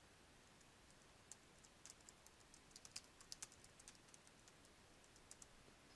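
Faint computer keyboard typing: a quick, uneven run of keystrokes starting about a second in and stopping shortly before the end.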